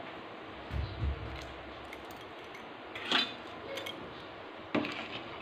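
A metal spoon clinking against a stainless steel cooking pot a few times, with a soft low bump about a second in and a faint steady hiss throughout.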